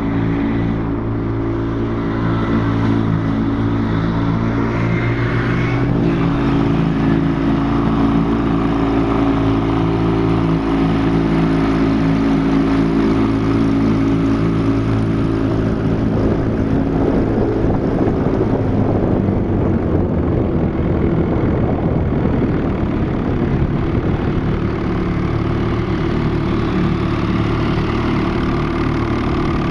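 1950s Johnson outboard motor running steadily at speed, a boat under way. A rushing noise of water and air grows louder about halfway through.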